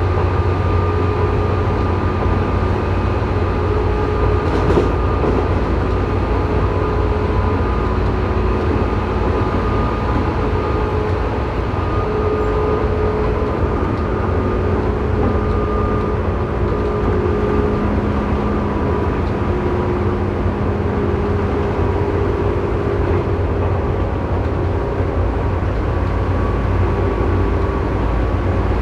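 Tobu 9000 series electric train running, heard from the floor above the armature chopper of car MoHa 9204: a heavy rumble with steady whining tones from the chopper that step slightly up and down in pitch. This car's chopper is known for an abnormal noise.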